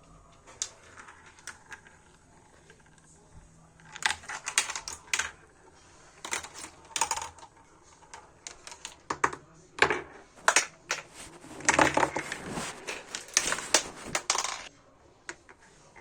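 Marbles rattling and clicking through a plastic MarbleWorks marble run, in several bursts of rapid clatter with short pauses between, the longest and loudest near the end.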